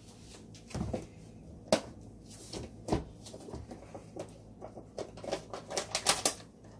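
Handling a plastic gochujang tub and a metal spoon: scattered sharp clicks and knocks as the tub is picked up and opened and the spoon scoops paste, with a quick run of clicks near the end.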